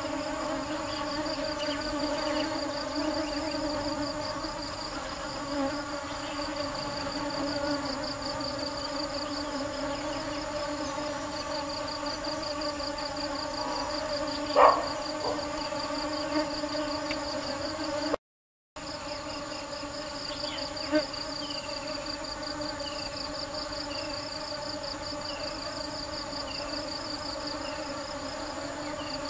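Honeybees buzzing steadily as they forage, with a high pulsing insect trill behind them. A short sharp knock about 15 seconds in is the loudest sound, and all sound cuts out for half a second a few seconds later.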